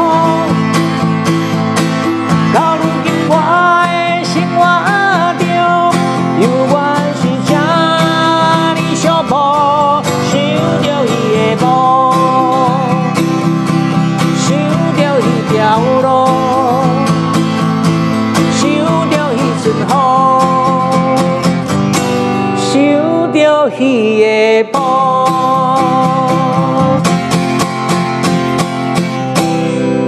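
A man singing a ballad in Taiwanese Hokkien, accompanying himself on an acoustic guitar with steady strummed chords.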